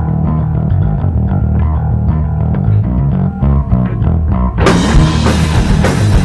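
Rock music: a bass and guitar riff plays on its own, then the full band crashes in with drums and distorted guitars about four and a half seconds in.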